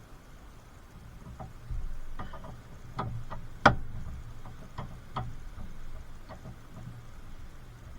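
Irregular clicks and light metallic knocks from hand tools at work on car suspension parts, the loudest about three and a half seconds in.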